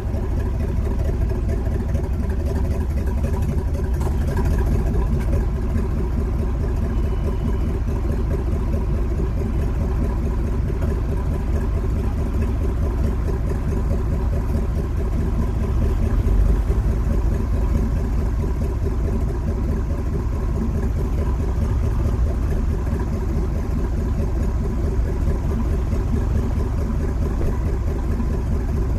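Old car's engine running at a steady idle, heard from right on top of its hood.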